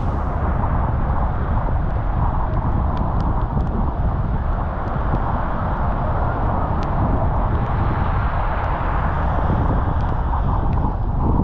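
Steady road noise of a car driving in the rain: a low rumble and an even hiss, with a few faint scattered ticks.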